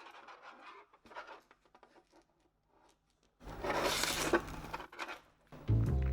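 Light handling clicks, then about a second and a half of rasping as the backing is peeled off the LED strip's double-sided adhesive tape. Background music comes in near the end.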